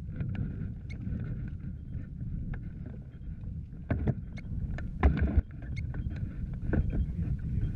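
Wind rumbling on the glider-mounted microphone, with irregular crunching steps on gravel and rock as the pilot walks the hang glider down the launch, a cluster of louder steps about five seconds in.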